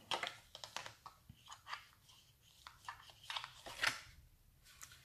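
Hands handling a black cardstock box and a bone folder: a scatter of short paper rustles and light taps, the loudest a little before four seconds in.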